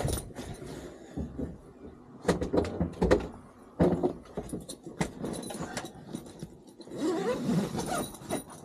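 Handling noise as the fabric window shades of a truck-bed camper tent are opened: rustling with several sharp knocks and clicks scattered through.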